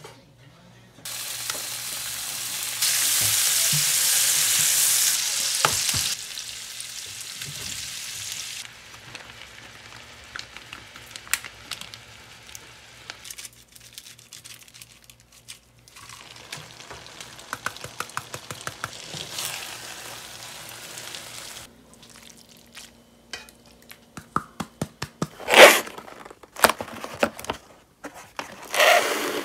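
Food sizzling and frying in a pan, loudest from about a second in to about six seconds, then settling to a quieter sizzle with scattered light utensil clicks. Several sharp knocks come near the end.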